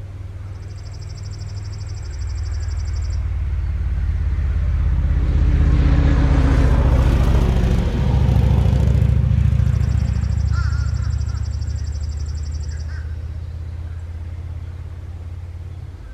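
A vehicle's low engine rumble that grows louder, peaks about halfway through, and fades away again, as a vehicle passing by.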